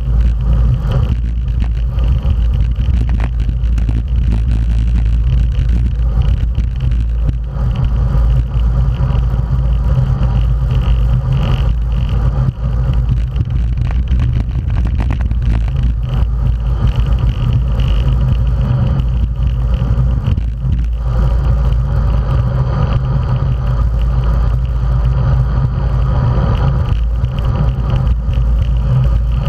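Steady low rumble of wind buffeting a bike-mounted camera's microphone at racing speed, with road bikes' tyre noise on asphalt.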